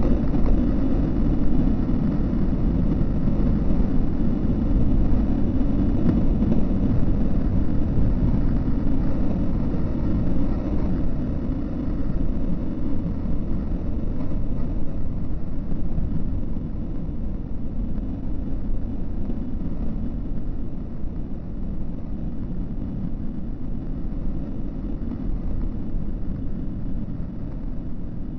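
A steady low rumble with no distinct events, easing slightly in level from about halfway through.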